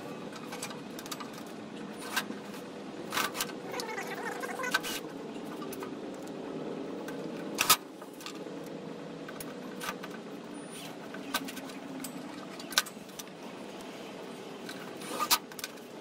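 Cordless drill turning a long extension bit at low speed, backing out the screws that hold an RV furnace's burner assembly, with sharp clicks of metal now and then, the loudest about eight seconds in.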